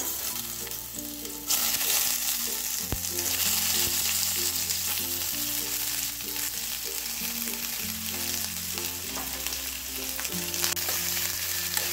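Cut onions sizzling in hot oil in a small frying pan, the sizzle getting markedly louder about a second and a half in and then holding steady.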